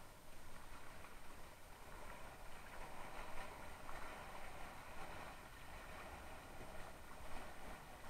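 Water rushing and splashing along the hull of a Mistral Superlight windsurf board under sail, an uneven hiss with a couple of louder splashes.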